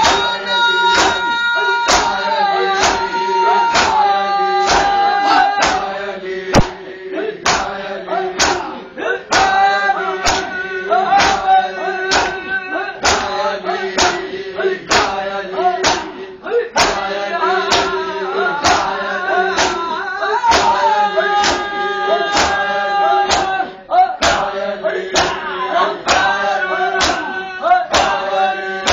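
Men chanting a noha, a Shia lament, over the steady slaps of matam, a crowd beating their bare chests in unison about one and a half times a second.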